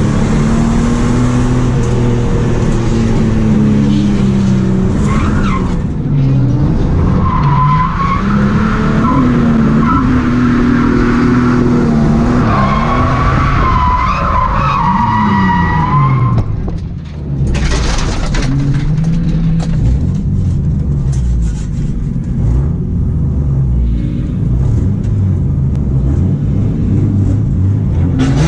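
Ford AU Falcon XR6's inline-six engine, heard from inside the cabin, revving up and down as the car is driven hard. The tyres squeal in wavering squeals about 8 seconds in and again from about 12 to 16 seconds in.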